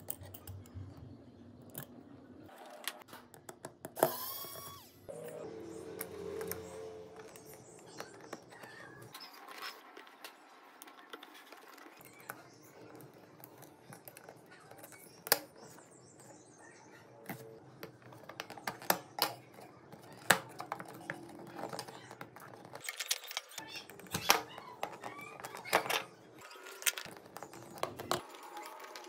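Steel tweezers and fingertips clicking and tapping on a Samsung Galaxy smartphone's circuit board, flex-cable connectors and plastic frame: a string of small, sharp clicks and taps, with one louder scrape about four seconds in and the clicks coming thicker and louder in the second half.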